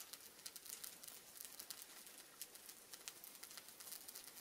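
Faint crackling of a wood fire's glowing embers under sausages grilling on a rack, a scatter of small irregular ticks and pops.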